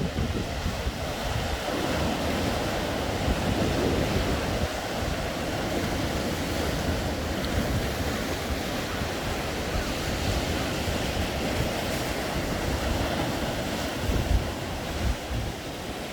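Sea waves surging and breaking on the shore in a strong wind, with wind buffeting the microphone in low, irregular rumbles.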